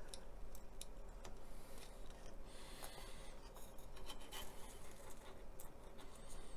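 Small plastic model-kit parts being handled and fitted together: scattered light clicks and taps, with a short scrape of plastic about three seconds in.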